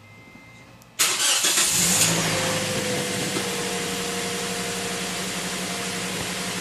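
2009 Scion xD's 1.8-litre four-cylinder engine cranking and catching about a second in, then settling into a steady idle.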